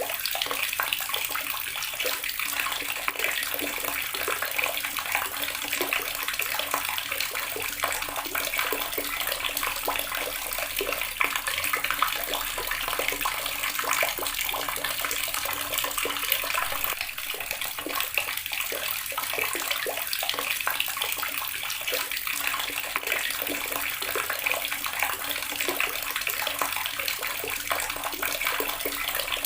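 Water running steadily from a tap, splashing continuously into a basin or tub with a bright, hissing spatter.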